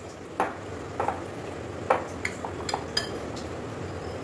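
Metal spoon clinking against a glass bowl while stirring a dry mix of gram flour, sliced onion and spices, with about six irregular clinks and the soft scrape of the spoon through the flour.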